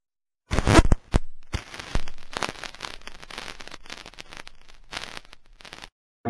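Irregular crackling and popping, with loud sharp pops in the first second or so and a thinner crackle after that.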